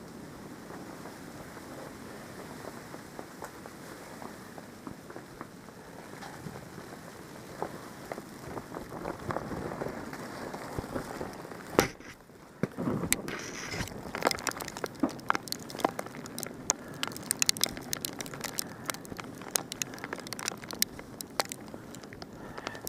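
Steady hiss of a snowstorm. About halfway through a sharp knock comes, then many quick crackling crunches in snow.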